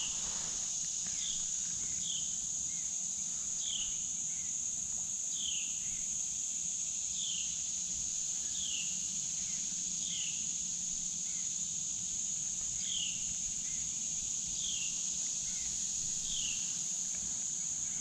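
Steady high-pitched drone of insects, with a short falling note repeating every second or two over it.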